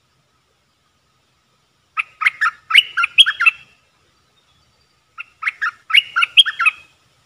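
Bulbul singing two short phrases of quick, bubbly, sliding notes, the first about two seconds in and the second about three seconds later.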